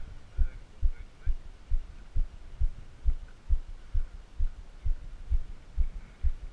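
Steady low thumping, about two beats a second, picked up by a body-worn action camera.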